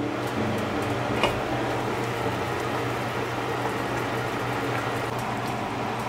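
A pot of pork belly, onions and leek boiling in broth on a stovetop: steady bubbling with scattered small pops, the sharpest about a second in, over a steady low hum.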